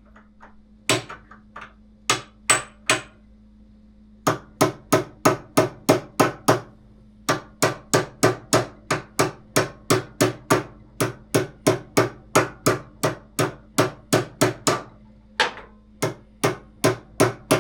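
Hammer blows driving a steel bearing race into the bottom of a scooter's steering head through a socket used as a driver. A few scattered taps come first, then a steady run of sharp strikes about three a second, with a couple of short pauses.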